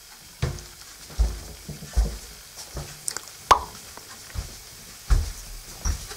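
Handheld camera jostled while its holder walks: low thumps at a walking pace, about one every 0.8 s, with a sharp click about three and a half seconds in.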